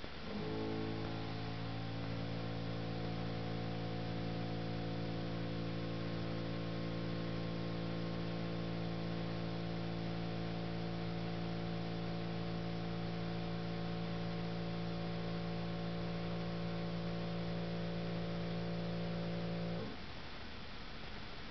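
Steady electrical mains hum with a stack of overtones over a constant hiss. It starts about half a second in and cuts off suddenly near the end.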